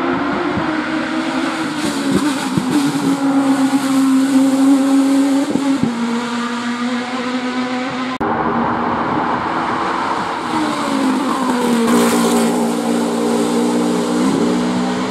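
Race car engines revving hard at full throttle on a hill-climb course, the engine note jumping in pitch at gear changes. After an abrupt cut about 8 s in, an open-cockpit sports prototype passes close, its engine dropping and then rising again in pitch near the end.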